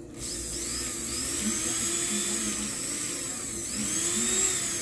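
Brushed motor of a Faet Quick Mixer hand blender, its housing opened, starting abruptly and running at high speed with a whine that rises and falls in pitch. It runs only when the faulty switch is pressed hard: the switch's spring contacts do not reach their plates.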